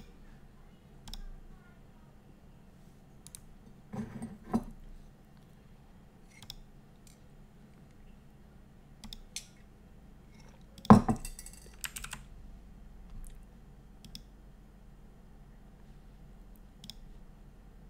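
Scattered clicks and knocks from handling things at a desk, over a faint steady hum. The loudest are a few knocks about four seconds in and a sharp knock about eleven seconds in.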